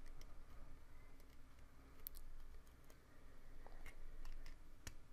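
Faint, scattered clicks of steel needle-nose pliers working at the tabs of a 28BYJ-48 stepper motor's housing, prying loose the plate that holds its reduction gears; the sharpest click comes near the end.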